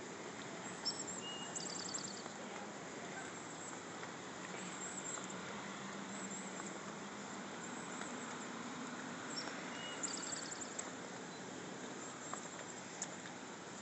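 Faint outdoor ambience with a steady hiss, and a bird's high call ending in a quick trill, heard twice about eight seconds apart.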